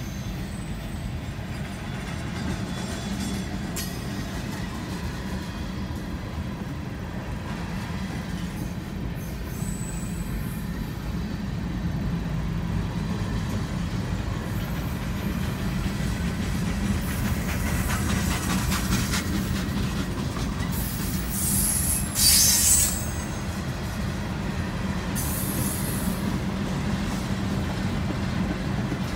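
Freight train cars rolling steadily past a grade crossing, heard from inside a car: a continuous low rumble of steel wheels on rail. A little over twenty seconds in, a brief, loud, high screech of wheel squeal stands out.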